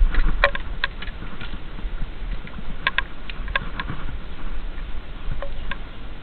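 Electrofishing poles being worked through a shallow creek: water sloshing under a steady low rumble, with scattered sharp clicks in two clusters, one in the first second and another about three seconds in.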